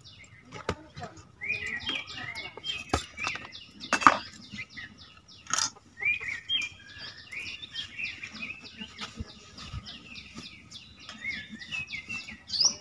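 Small birds chirping and calling over and over, with a few sharp clicks in between.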